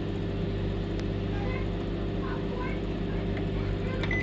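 Microwave oven running with a steady low hum while heating a marshmallow, stopping at the very end.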